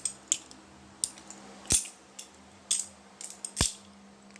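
Balisong (butterfly knife) being flipped: a string of sharp metallic clicks and clacks as the handles swing round and strike the blade, about seven in all, two of them much louder.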